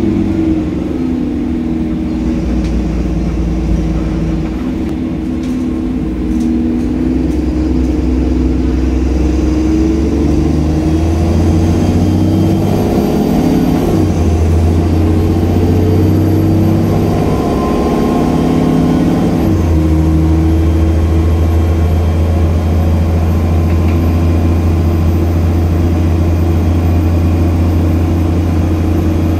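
Dennis Trident 2 double-decker bus (ADL Enviro 400) heard from the upper deck while under way. The diesel engine's note climbs and drops back twice as the bus pulls up through the gears, then settles into a steady drone at cruising speed, with a faint high whine above it.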